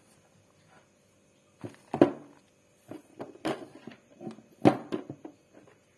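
Handling noise from hand tools and a network cable on a work surface: a few irregular clicks and knocks, the loudest about two seconds in and again near five seconds.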